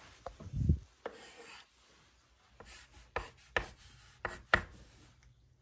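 A pencil on a sheet of paper lying on a wooden desk as a child starts to draw: scratching strokes and a few sharp taps in the second half, after a low thump about half a second in.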